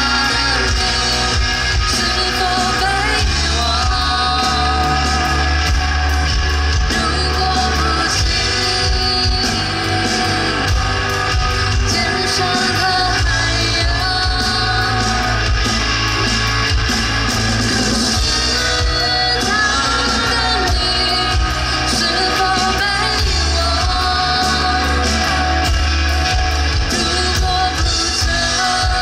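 Live band playing a song with a lead vocal over guitar, bass and drums, loud and steady throughout.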